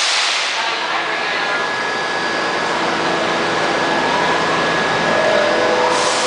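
R68 subway train standing at the platform: a burst of air hiss fading over the first second, then the steady whir of the stationary cars' equipment, with two faint rising whines after the middle.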